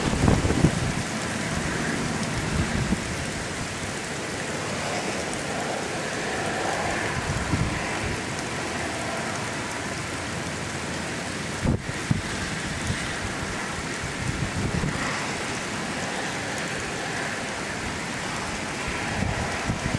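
Steady rain from Hurricane Sandy falling outdoors, an even hiss, with low gusts of wind on the microphone in the first few seconds and again near the end.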